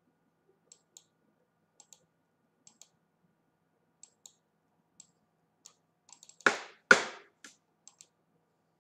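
Computer mouse clicks, faint and in quick pairs about once a second. About six seconds in comes a run of faster clicks and two much louder knocks half a second apart, the second the loudest.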